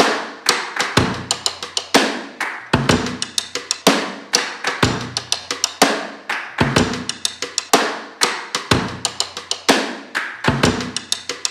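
Background music: a steady drum-kit beat, a heavy kick and snare about every two seconds with quick ticking strikes in between.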